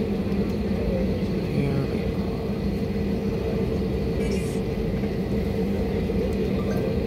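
Steady hum of an airliner's jet engines at idle, heard from inside the cabin as the plane taxis slowly onto its stand. There is a constant low rumble with a couple of steady droning tones and no changes in pitch or level.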